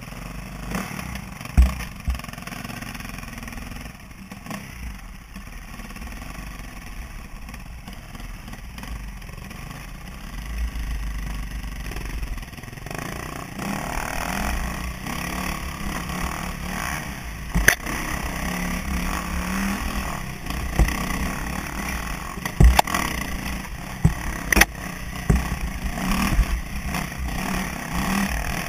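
KTM enduro motorcycle engine heard from the rider's helmet: running quietly for about the first twelve seconds, then louder and rising and falling with the throttle as the bike rides a dirt single track. Several sharp knocks come through, the loudest about a second and a half in and again around eighteen, twenty-three and twenty-five seconds.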